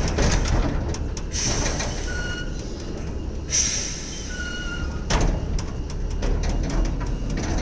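Heavy truck's diesel engine running with a steady low rumble, broken by two short hisses and scattered clicks and knocks.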